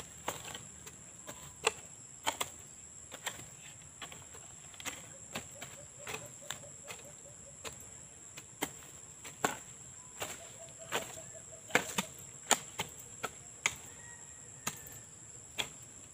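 Two long-handled hoes chopping into soil while weeding among young corn: irregular sharp strikes, about one or two a second, some much louder than others.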